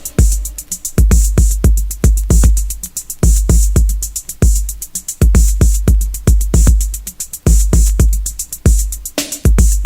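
Electronic dance music with no vocals: a drum-machine beat of long, deep bass-drum booms under fast, crisp hi-hats.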